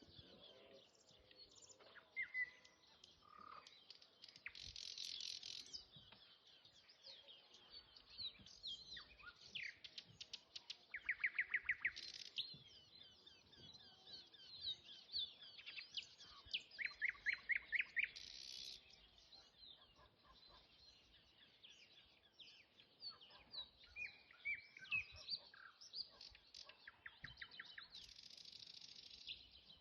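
Nightingale singing in separate phrases of whistles, buzzy rattles and fast series of repeated notes. The loudest trills come about a third of the way in and again near the middle.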